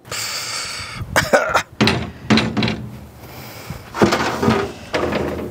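Clanks and knocks of metal as the steel door of an offset smoker is unlatched and pulled open.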